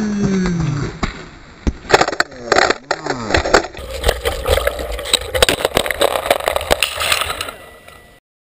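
A mountain-bike crash on rocks: the rider's cry falls in pitch, followed by sharp knocks and clatter. From about four seconds in comes helmet-camera sound of a mountain bike rattling and clattering down a rocky trail, with wind noise. It cuts off suddenly near the end.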